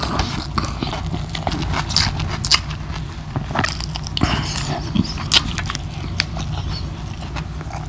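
Close-miked chewing and crunching of crispy deep-fried pork belly (lechon kawali) with rice: a run of irregular crunches and mouth clicks.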